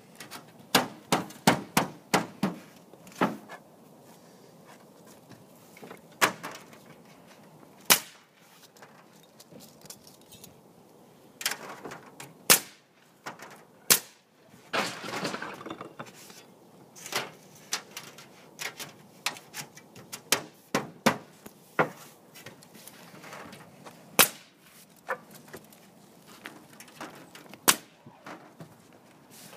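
Irregular sharp knocks and metallic clacks of roofers handling and fastening aluminum shingle panels on a metal roof, with a quick run of strikes in the first few seconds.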